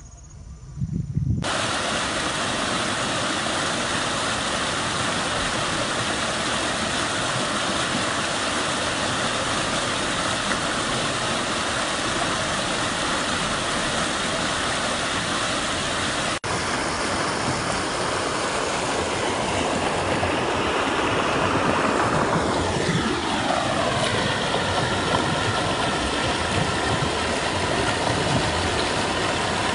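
A rocky mountain stream rushing and splashing over boulders, a steady even noise that starts abruptly after a second and a half of quiet. Partway through there are a few falling sweeps in its tone.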